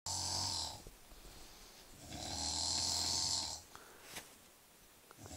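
A sleeping man snoring in a slow, regular rhythm. One snore trails off at the start, a full snore lasting about a second and a half comes about two seconds in, and the next one begins at the end.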